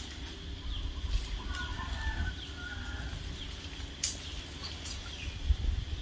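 Birds calling: short falling chirps repeating about once a second, and a few soft clucking calls between about one and a half and three seconds in, over a low rumble. A sharp click comes about four seconds in.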